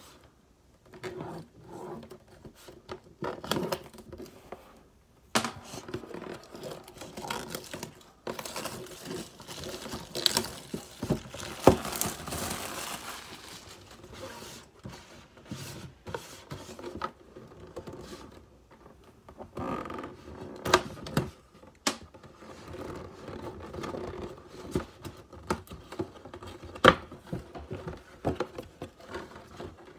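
Plastic shrink wrap crinkling and tearing as it is pulled off a cardboard box, with scattered clicks and knocks of the box being handled. There is a longer stretch of tearing about ten to thirteen seconds in.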